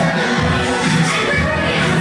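Show music with a steady beat for a character dance show, with the noise of a large crowd underneath.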